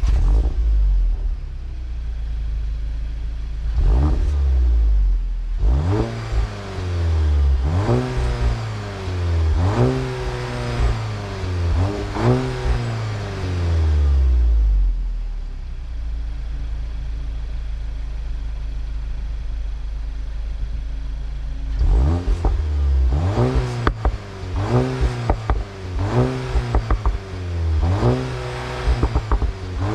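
2023 Volkswagen Golf GTI's 2.0-litre turbo four-cylinder accelerating at full throttle from a standing start. The revs climb and break sharply at each quick dual-clutch upshift, about five in all, then drop as the throttle eases off. The engine holds a steady drone for several seconds, and from about two-thirds of the way in it revs up and down in a series of short blips.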